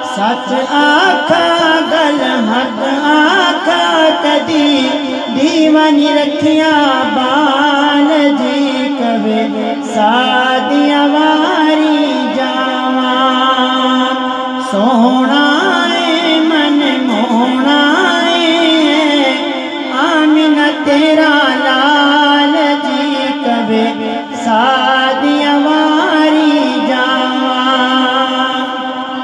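A man sings a Punjabi/Urdu naat (devotional praise of the Prophet) unaccompanied into a microphone, drawing out long held notes with wavering ornaments. A steady low drone lies beneath the melody.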